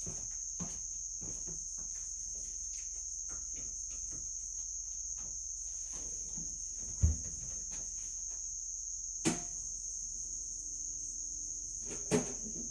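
A few sharp knocks and clunks, the loudest about 7 and 9 seconds in and again near the end, as a small dorm-size refrigerator is plugged into an idling 3000 W inverter, over a steady high-pitched tone.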